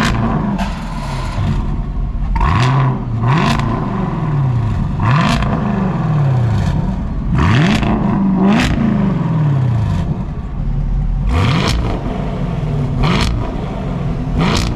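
Camaro SS's naturally aspirated 6.2-litre V8 through a Corsa cat-back exhaust, blipped in a series of about nine free revs from idle. Each rev climbs sharply and then falls back to a steady idle before the next.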